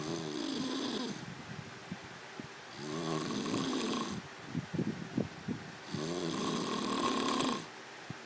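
A sleeper snoring: three long pitched snores, each about a second and a half and roughly three seconds apart. Between the second and third comes a crackly, clicking breath.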